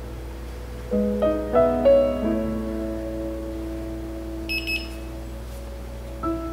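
Gentle background piano music: a few notes struck about a second in, then held and left to ring. About four and a half seconds in there are two brief high clinks.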